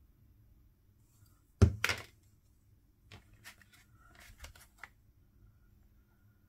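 Paper pieces and tools handled on a craft table: a sharp knock with a second right after it about one and a half seconds in, then a run of light clicks and paper rustles.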